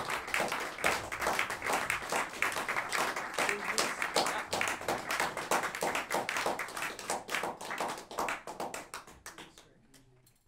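Audience clapping after a piece. The claps thin out and fade away near the end.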